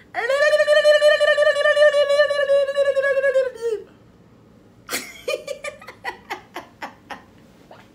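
A person's voice holding one long high note for about three and a half seconds, wavering slightly and dropping off at the end, followed about a second later by a run of short laughs that die away.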